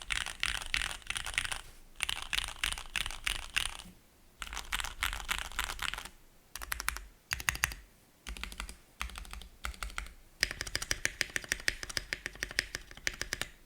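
Typing on a Cannonkeys Bakeneko60 mechanical keyboard with lubed Cherry Hyperglide Black linear switches, an FR4 plate and PBT keycaps. Quick runs of keystrokes come in several bursts broken by short pauses, with one fast even run of clicks about halfway through.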